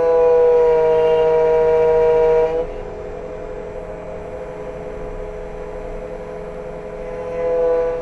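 Xtool automatic key cutting machine cutting a key blade, its motor and cutter giving a steady whine. The whine is loud for the first two and a half seconds, drops to a quieter hum, and swells again near the end.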